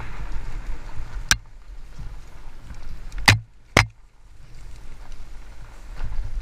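Fat-tyre mountain bike riding down a rough, rutted dirt trail: a steady low rumble and rattle from the tyres and bike, broken by three sharp knocks as it hits bumps, one about a second in and two close together a little past three seconds.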